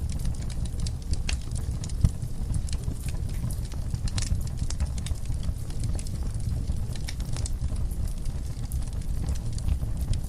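Wood fire burning in a fireplace: logs crackling with scattered sharp pops, one louder pop about two seconds in, over a steady low rumble of the flames.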